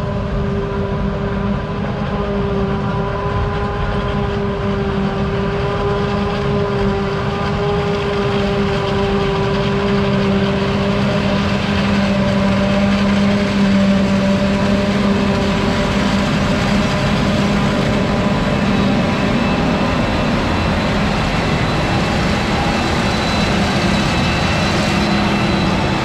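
Claas Jaguar 970 forage harvester chopping maize under load, with a tractor alongside: a loud, steady mechanical drone with a constant whine. It grows a little louder over the first half as the machines come nearer.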